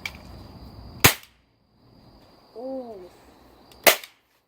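Toy cap gun fired twice: two sharp bangs about three seconds apart, each made by a percussion cap going off.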